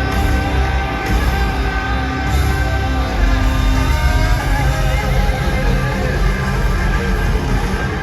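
Live rock band playing loudly, with electric guitar over bass and drums and a voice or guitar holding wavering notes.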